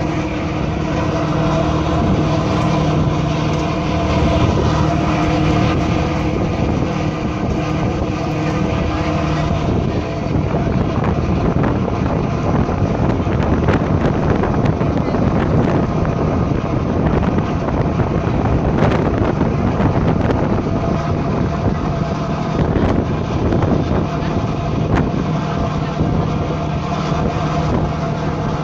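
Tour boat's engine running with a steady hum, heard from the open deck over a rushing of wind and water. About a third of the way in, the hum sinks under the rushing noise, and it comes back near the end.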